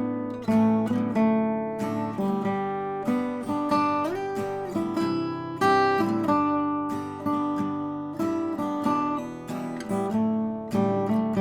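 Instrumental acoustic guitar music: picked notes and chords, each struck sharply and ringing out as it fades.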